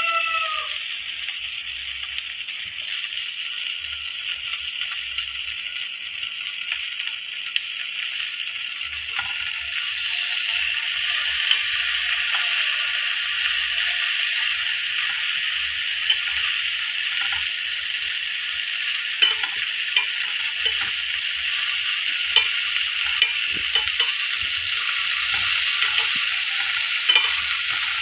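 Eggplant pieces pan-frying in a stainless steel pan with a steady sizzle that grows louder about ten seconds in. Tongs click against the pan in the second half.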